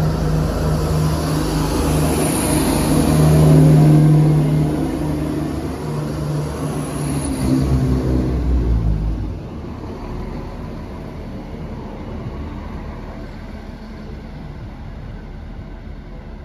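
Diesel multiple unit passing close by, its underfloor diesel engine running with a steady hum that is loudest about four seconds in. About nine seconds in the engine sound drops away sharply, leaving a fainter rumble as the train moves off.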